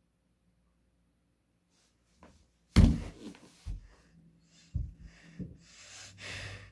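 After about two seconds of near silence, one sharp thump, followed by a few softer knocks and rustling.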